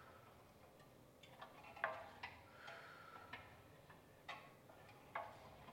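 Faint, irregular clicks and ticks from a Pilates Allegro reformer's ropes, pulleys and spring-loaded carriage as single-arm rope pulls are worked, about seven in all, the sharpest near two seconds in and again past four seconds.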